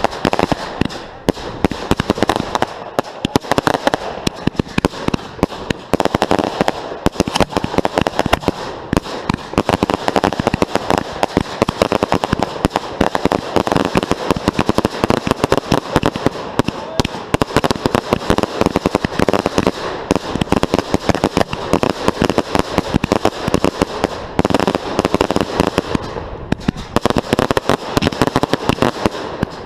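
Fireworks going off in a dense, continuous barrage of bangs and crackles, many a second, briefly thinning a few times.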